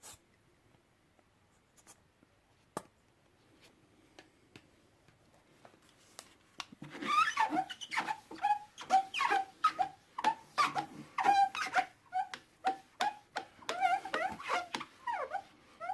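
A few light clicks of handling, then from about seven seconds in a quick run of short squeaks, two to three a second: a polishing pad rubbing polish over a plastic headlight lens.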